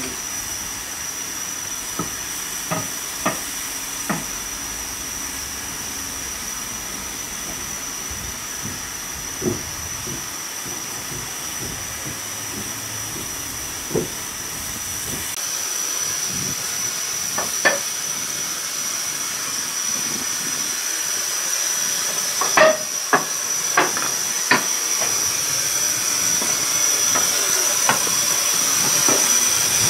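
Steam hissing steadily from the standing LMS Royal Scot class 4-6-0 steam locomotive 46100, with a thin high whistling tone in the hiss and a few sharp metallic clicks. The hiss grows louder from about halfway through.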